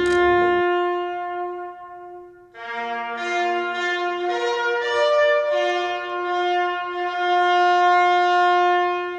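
Brass instruments playing slow, long-held notes: one note held for about two and a half seconds, a brief break, then a slow run of sustained, overlapping notes.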